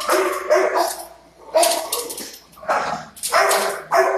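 Shelter dogs in kennels barking repeatedly, about one or two barks a second with short gaps between them.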